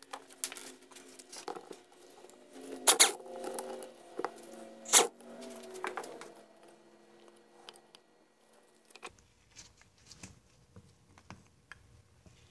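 Light clicks and clinks of metal hand tools and engine parts being handled, with sharper knocks about three and five seconds in.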